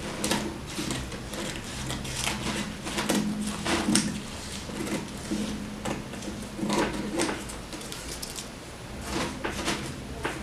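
Scissors snipping through crumpled kraft paper, trimming the excess close along the edge of a box, with the stiff paper crinkling between irregular cuts.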